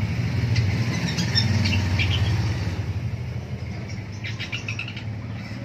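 Long-tailed shrike giving short scratchy chirps in two bouts, over the low rumble of a passing motor vehicle that fades away.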